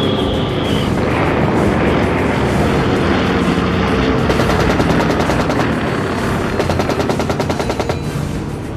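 Battle sound effects: a steady droning aircraft engine, with bursts of rapid machine-gun fire over it in the second half.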